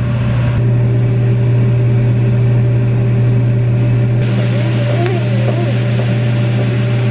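Commercial kitchen exhaust hood fan running with a steady low hum.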